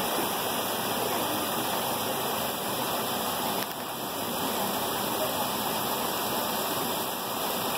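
Shallow rocky creek running over stones, a steady rushing water sound.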